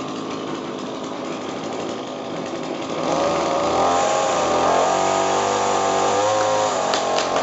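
Petrol chainsaw idling, then revved up about three seconds in and held at high speed, its pitch wavering under load as it cuts into a tree branch. The revs drop back near the end, followed by a few sharp clicks.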